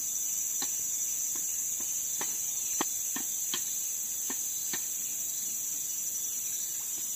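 Steady high-pitched drone of an insect chorus, crickets or cicadas, with a few faint, irregular clicks or taps scattered through it.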